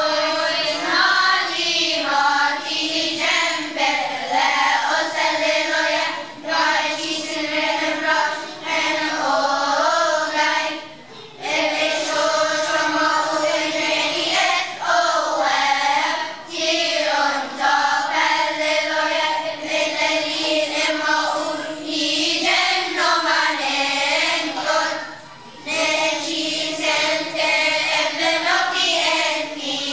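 Children's choir singing together from song sheets, in long sung phrases with short pauses about eleven and twenty-five seconds in.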